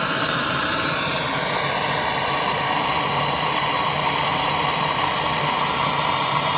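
Handheld butane-propane gas torch burning with a steady hiss as its flame heats rusted, seized bolts to loosen them.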